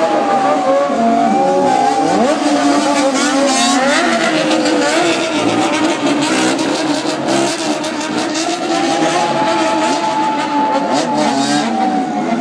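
Several bosozoku motorcycle and car engines revving over one another, their pitches rising and falling in repeated long sweeps.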